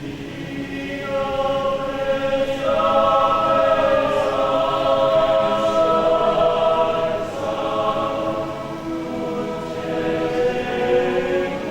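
A choir singing long held chords. The sound swells to its loudest a few seconds in, eases off, then swells again near the end.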